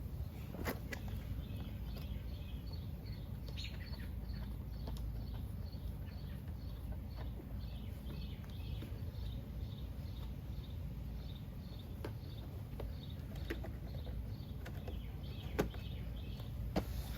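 Outdoor background with a small creature's short high chirp repeating about twice a second over a low steady rumble. A few sharp clicks break in, the loudest near the end.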